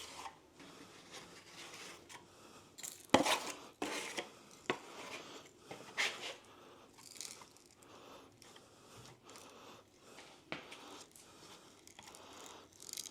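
Hand tools working cornice cement: a scatter of sharp knocks and clicks, the loudest about three seconds in, with light scraping and crunching between them.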